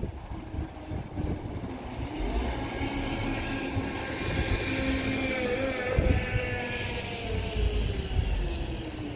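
A train passing, its engine note holding steady and then falling gently in pitch as it goes by, with wind rumbling on the microphone.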